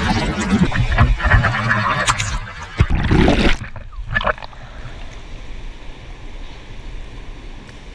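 Swimming-pool water churning and bubbling around a swimmer, heard muffled from underwater. About three and a half seconds in, the sound drops off suddenly as the camera comes above the surface, leaving light splashing and the steady hum of the pool room.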